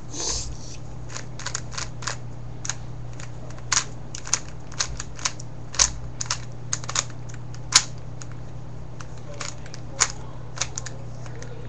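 Irregular sharp clicks and snaps of stiff paper being handled and squeezed in the hands, over a steady low hum.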